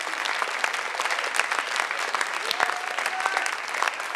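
Theatre audience clapping in a long, steady ovation, many hands together, with a short call or two rising over the clapping about two-thirds of the way through.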